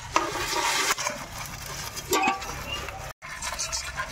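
Live small field crabs tipped from another vessel into an aluminium pan, with a rush of noise for about a second and then a few sharp clinks and scratches of shells and legs on the metal.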